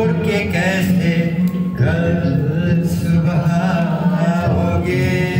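Music with a man's voice singing a wavering, chant-like melody over a steady low accompaniment.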